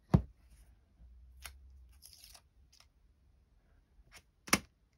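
Clear acrylic stamp block handled and pressed onto a paper card: a sharp tap at the start, a few faint clicks and paper rustles, and another sharp tap near the end.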